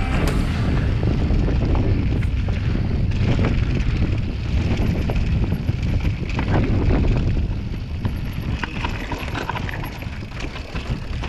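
Wind buffeting the microphone and tyres rolling and crunching over loose rocky trail as a mountain bike rides, with scattered clicks and rattles from the bike and stones.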